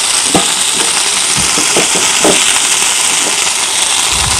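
Hot oil sizzling steadily in a frying pan as fresh moringa (drumstick) leaves are dropped in, with a few soft taps and rustles in the first half as the leaves land.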